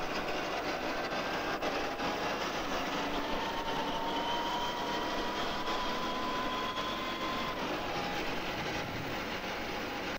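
Armoured vehicle on the move: a steady, dense engine and running-gear noise, with a faint whine that rises slowly and drops out about three-quarters of the way through.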